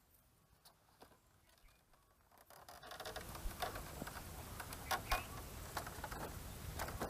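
Barefoot steps onto a platform of loose bamboo poles: a few faint soft steps at first, then from about three seconds in a handful of sharp clacks and knocks as the bamboo slats shift under the man's weight.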